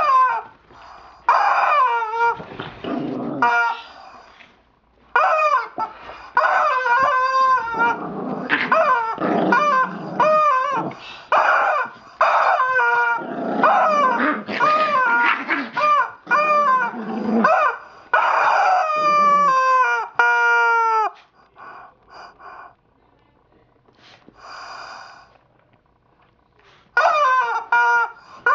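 A chihuahua barking and tussling with a rubber chicken, the toy squawking in quick repeated calls, some short and some drawn out and falling in pitch. About three quarters through there is a pause of several seconds, then the calls start again just before the end.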